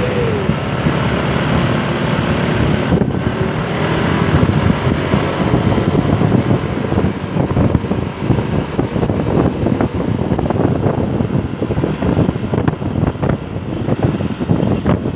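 Vehicle engine and road noise with wind buffeting the microphone. A held horn note falls away in pitch and stops right at the start.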